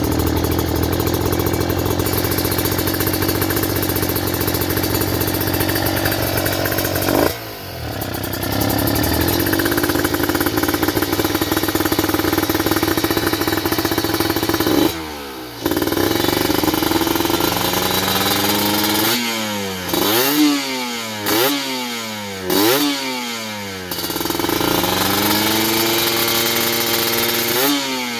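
Kawasaki Ninja 150 RR two-stroke single-cylinder engine breathing through an Arrow expansion-chamber exhaust, PWK 28 carburettor and open air filter, revved hard without load. It is held at high revs for several seconds at a time with two sharp drops, then blipped in a quick run of short revs before being held high again near the end.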